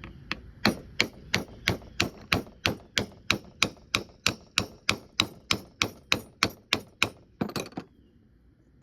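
Rapid, evenly spaced taps, about three a second, of plastic striking the shaft of a Honda Element power steering pump to drive the shaft and its bearing out of the pump housing. The taps stop about a second before the end.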